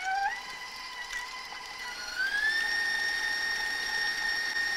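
Electric stand mixer whipping softened butter, its motor giving a steady whine. The whine steps up in pitch about a third of a second in as the speed is raised, then climbs again around two seconds in and holds at the higher speed.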